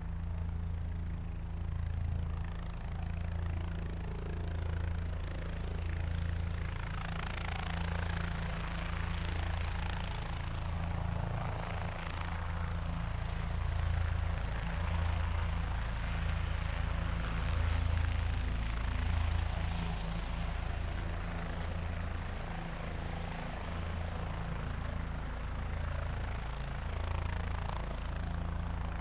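Helicopter in flight: a steady low rotor beat under rushing engine noise. The rushing swells louder through the middle and then eases off.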